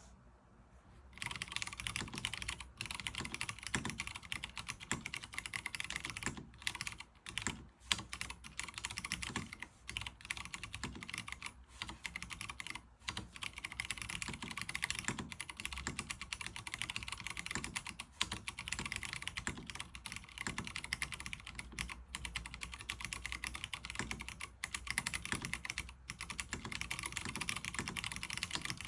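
Typing on a NovelKeys Classic TKL mechanical keyboard with Cherry MX Brown tactile switches, 60 g Sprit springs, PBT keycaps and no case foam. Fast, continuous keystrokes begin about a second in, with a few short pauses.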